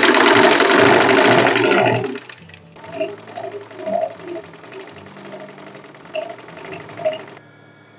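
Sewing machine running fast and evenly, stitching lace trim onto a trouser hem, stopping about two seconds in. Soft background music runs underneath.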